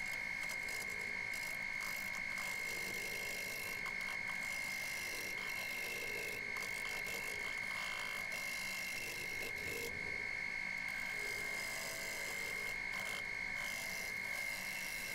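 Wood lathe running while a gouge cuts across the outer face of a large spinning wooden disc, trimming off the out-of-balance areas: a steady high whine over the hiss of the cut.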